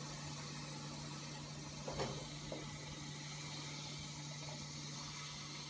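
Pot of water boiling on a kitchen stove: a steady low hum with an even hiss, and one brief louder sound about two seconds in.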